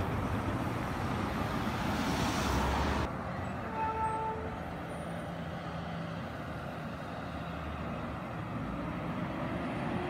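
Street traffic noise: vehicles running and passing, with a large truck's engine running close by. The sound drops abruptly about three seconds in.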